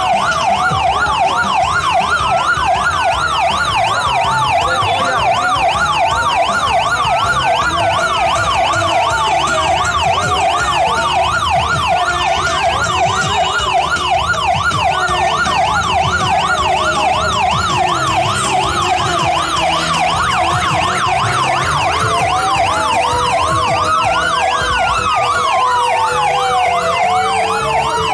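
Police escort sirens sounding loud and continuous: one in a rapid yelp, another in a slower wail that rises and falls every few seconds.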